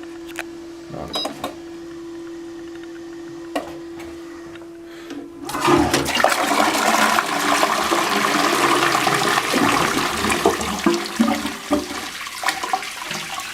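Balterley Beo Regent toilet flushing. A steady hum and a few clicks come first, then the rush of water into the bowl starts about five and a half seconds in, runs loud for several seconds and tails off near the end.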